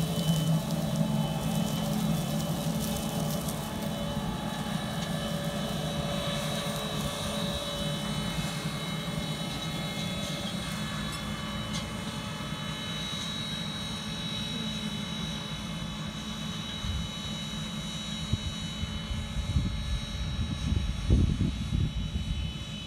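CLAAS Xerion 4x4 tractor pulling an air drill and air cart through a field, its engine running with a steady drone and a thin high whine over it, loudest as it passes close and fading as it moves away. Wind buffets the microphone near the end.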